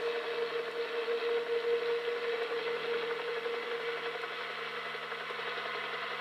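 Bell 206 JetRanger helicopter flying low past: a steady rush of turbine and rotor noise with a steady tone that fades about four and a half seconds in.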